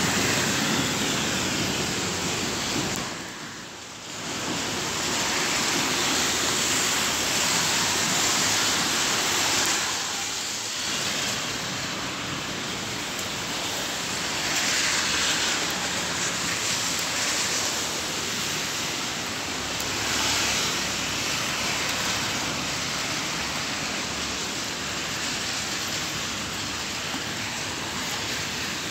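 Steady hiss of rain and car traffic on wet streets, dipping briefly about four seconds in.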